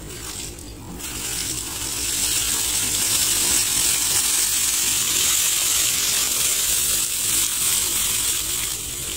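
Compressed air forcing muddy water out of a borewell casing pipe: a loud, steady hissing gush of spray that starts about a second in. The air-lift flushing is bringing silt up from inside the borewell.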